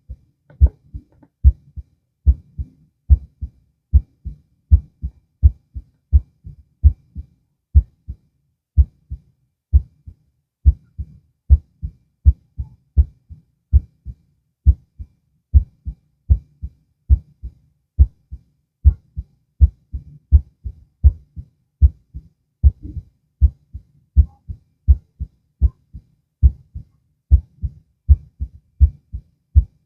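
Human heartbeat heard through a stethoscope: steady paired lub-dub thumps, a louder beat followed by a softer one, a little over one heartbeat a second in a regular rhythm.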